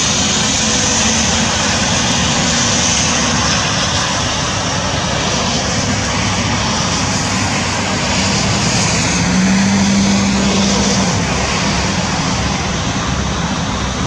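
Loud, steady outdoor rushing noise with no clear events, and a faint hum that rises briefly about two-thirds of the way in.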